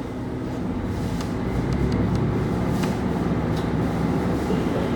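KiHa 25 diesel railcar running, heard from inside the car: a steady low engine hum and running noise that grows slightly louder, with a few faint sharp ticks in the middle.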